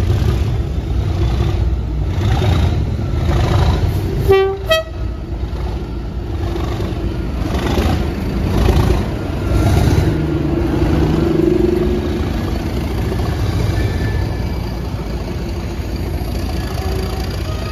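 A Network Rail Class 97/3 (Class 37) diesel locomotive's English Electric engine throbs heavily as it approaches and runs past close by. About four and a half seconds in it gives a short two-note horn toot.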